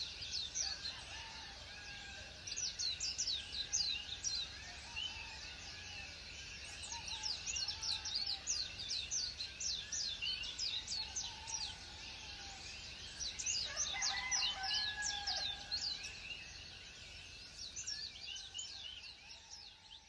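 Songbirds chirping: rapid series of short, high, downward-sweeping chirps from several birds, with a lower call standing out about two-thirds of the way through, fading out at the end.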